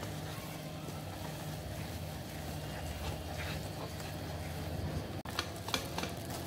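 A steady low hum, with a few light scrapes near the end from a spatula stirring green pea filling as it dry-roasts in a nonstick pan.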